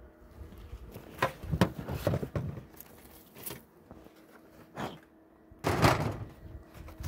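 Knocks and thuds of a bee smoker and hive gear being handled on a wooden hive lid: a quick cluster of knocks, two single ones, then a longer noisy burst near the end.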